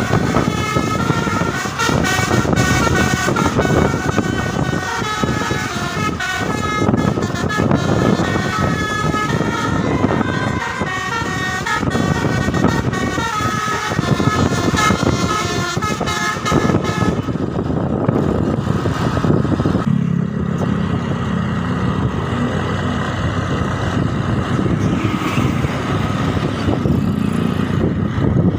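Telolet musical air horn on an Indonesian intercity bus playing a fast melody of short stepping notes for about the first seventeen seconds, then the tune stops and a lower, steady engine drone is left.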